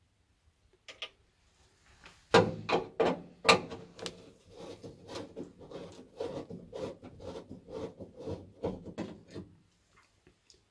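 Screwdriver undoing the screw on a boiler's sheet-metal side panel: a run of irregular clicks and metallic scrapes, starting about two seconds in and lasting several seconds.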